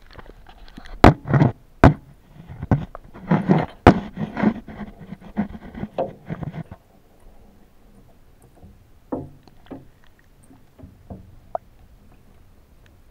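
Water sloshing in a bathtub, heard from a camera held in the water, with sharp knocks against the tub: a run of irregular thumps and splashes for about the first seven seconds, then only a few faint knocks.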